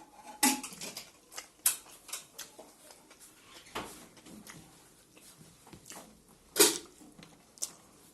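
Close-up mukbang eating sounds of a rice meal with greens, buffalo meat and pickle: wet chewing and mouth smacks, heard as irregular sharp clicks, the loudest about six and a half seconds in.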